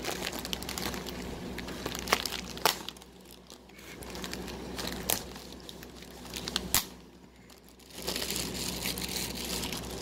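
Crinkling and rustling with a few sharp clicks as hands work at getting a container of feeder crickets open. It drops away briefly twice.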